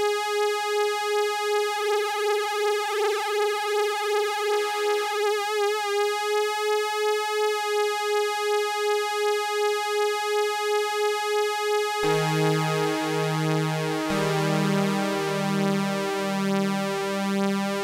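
Korg Minilogue analog polysynth holding a single bright note with detuned oscillators and a slight LFO on pitch, its level pulsing about two to three times a second and wavering in pitch a few seconds in. About twelve seconds in it changes to a lower chord of several held notes.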